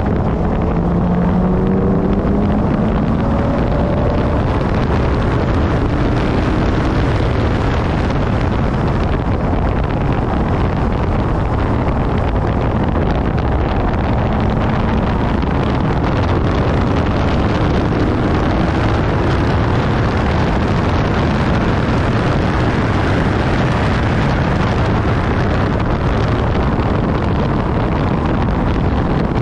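Heavy wind rush on the GoPro's microphone from an Infiniti G37S's V6 at track speed. The engine note shows through faintly, climbing in pitch under acceleration near the start and twice more around the middle.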